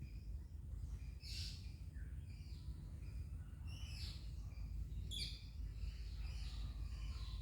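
Myna birds calling in short, harsh bursts, the loudest about a second in and again around four and five seconds in, over a steady low rumble.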